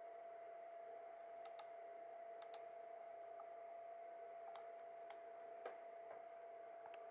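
Scattered computer mouse clicks, several in quick pairs, over a faint steady electrical hum.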